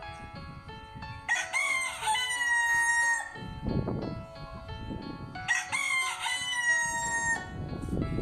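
A rooster crowing twice, each crow a long call of about two seconds, over soft background music.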